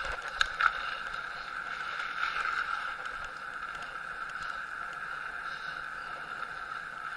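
Bicycle riding along a paved lane: a steady, even whir from the moving bike, with a couple of light clicks about half a second in.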